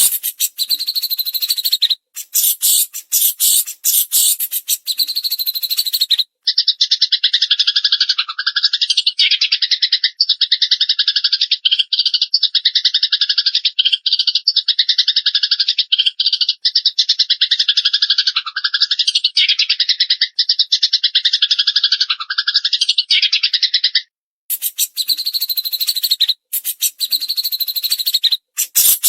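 Recorded songbird track of Eurasian tree sparrows (burung gereja) and cililin: a rapid, sharp chattering for about the first six seconds, then a long unbroken buzzy trill lasting some eighteen seconds, and the chattering again near the end.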